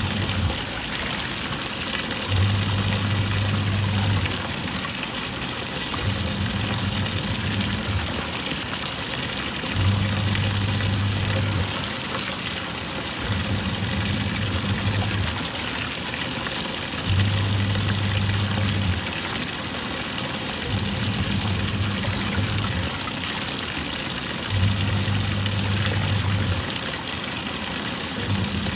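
Twin-tub washing machine's wash tub agitating: water sloshing continuously while the pulsator motor hums in runs of about two seconds, with short pauses between them, as it reverses direction back and forth.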